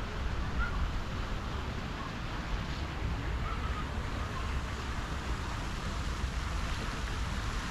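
Pond fountain jets splashing into the water, a steady hiss of falling water, with wind buffeting the microphone as a fluctuating low rumble. A few faint bird chirps come through now and then.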